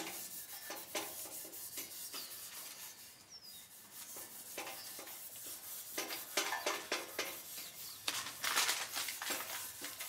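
Scotch-Brite pad rubbed by hand over a 1977 Camaro Z28 bumper in a run of quick scrubbing strokes, scuffing the surface dull before paint. The strokes get louder near the end.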